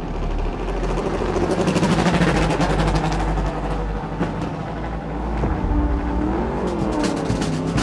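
Yamaha R1 superbike's inline-four engine running as the bike leaves the pit box, its pitch dipping and rising again near the end.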